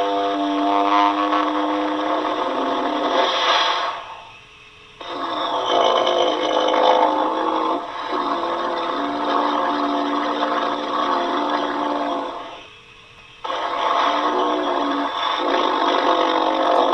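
Homemade dinosaur call sound effect made from an altered human voice: three long, drawn-out growling calls, each stepping down in pitch, with short pauses between them.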